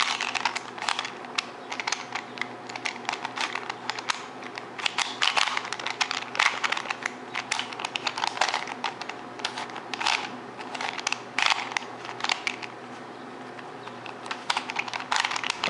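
Rubik's cube being turned quickly by hand, a rapid irregular run of plastic clicks and clacks as its layers snap round, with a short lull near the end.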